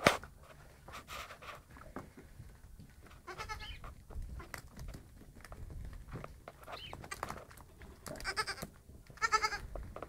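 Young Saanen-cross goat kids bleating: one short wavering bleat about three seconds in and two more near the end. Scattered light knocks and taps run between them, with one sharp knock at the very start.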